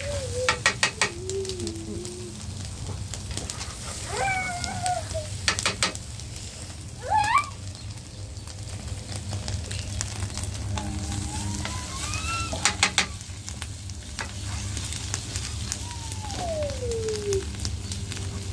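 Food sizzling steadily as it fries in a pan, with three short runs of quick clinks, like a utensil against the pan.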